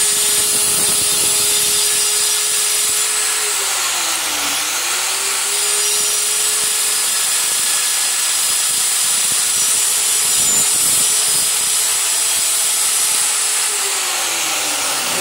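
Handheld electric tile cutter (angle-grinder type) running with its blade grinding into a ceramic tile strip, cutting a series of fine shallow grooves. A steady motor whine under the loud hiss of the cut; the motor's pitch sags and recovers about four seconds in, and sags again near the end as the blade is loaded.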